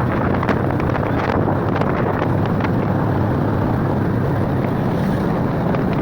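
A vehicle engine running steadily under heavy wind noise on the microphone, the sound of riding along at speed.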